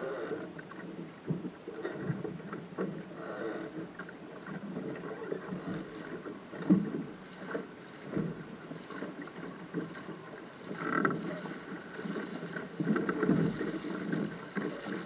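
Choppy water splashing and slapping against the hull of a small sailing dinghy under way, with irregular knocks through the hull and one sharp thump about seven seconds in.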